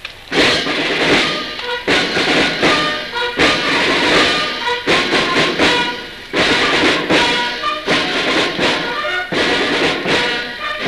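Brass band striking up loudly and playing with strong accented beats, the ceremonial music for the flag-raising.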